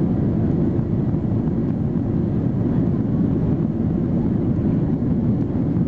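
Steady cabin noise of a Boeing 737-800, its CFM56-7B engines at high thrust, heard from inside the passenger cabin: an unbroken low rumble with airflow noise.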